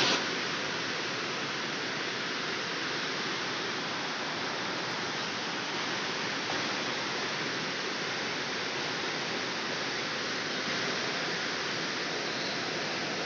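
Steady, even hiss with no distinct events, holding at one level throughout.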